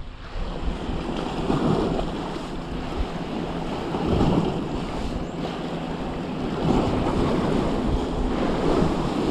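Sea waves washing and breaking against rocks, swelling every two to three seconds, with wind rumbling on the microphone.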